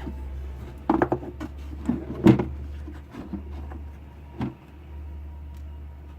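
Plastic clicks and knocks from handling the headlight unit's back and the waterproof wire connector while working it into place, a few separate knocks, the loudest about two seconds in, over a steady low hum.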